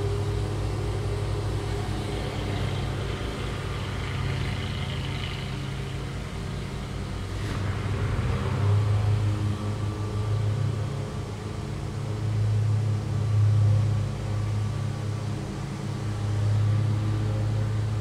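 Lawn mower engine running steadily, its drone swelling and fading as it moves around the yard.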